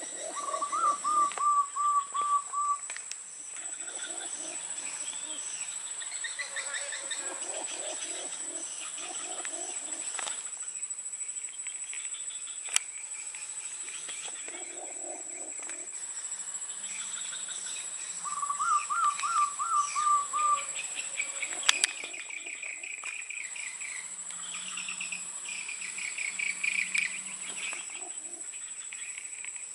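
Forest birds calling. One bird twice gives a run of about seven short, evenly spaced notes, over the chirps and soft calls of other birds and a steady high whine. A few sharp clicks come midway.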